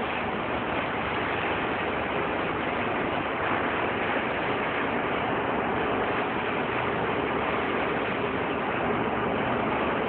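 Disinfectant sprayer spraying, a steady hiss with no change in level.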